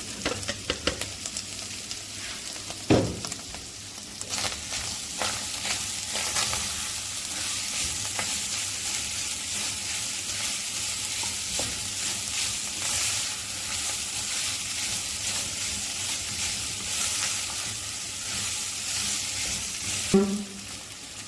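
Ground beef with onion, garlic and green peppers sizzling in a frying pan as it is stirred, the utensil clicking and scraping against the pan, with a sharp knock about three seconds in.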